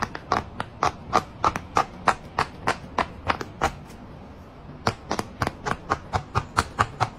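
Bubbles of a jumbo silicone pop-it fidget toy being pressed in by hand, popping in a steady run of about three pops a second. The popping stops for about a second just before the midpoint, then starts again a little faster.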